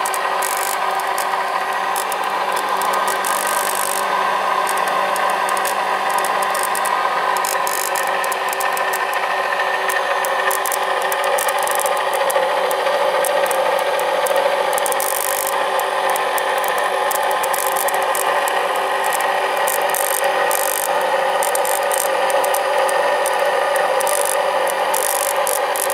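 Rotary inverter (a brushed motor-generator) running steadily on a 24-volt supply: an even whine of several held tones, with a scratchy crackle from its carbon brushes riding on the spinning commutator.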